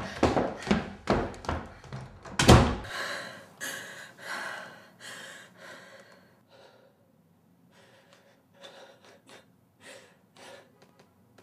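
Several heavy thuds mixed with a woman's sharp gasps, ending in one loud slam about two and a half seconds in; then her ragged gasping breaths fade into faint, broken sobbing.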